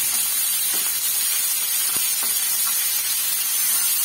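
Onion sizzling steadily in hot oil in a nonstick frying pan, with soft taps and scrapes of a spatula stirring it now and then.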